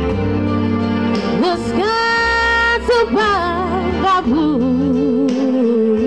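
A woman singing karaoke into a handheld microphone over a music backing track, amplified through a PA. She holds long notes, the last one with a wide vibrato.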